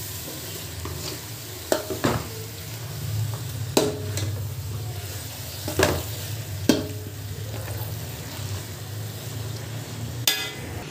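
Metal slotted spatula stirring and scraping chicken pieces and masala powders in a steel pot, with several sharp clinks against the pot's side, over a faint steady sizzle from the pot on the flame.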